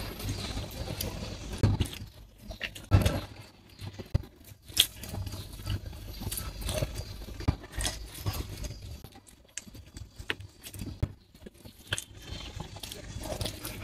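A person eating pares and rice: chewing, with irregular short clicks and soft knocks throughout.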